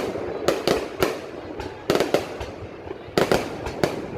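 Aerial fireworks bursting, an irregular series of sharp bangs with echo and a quick run of them about three seconds in.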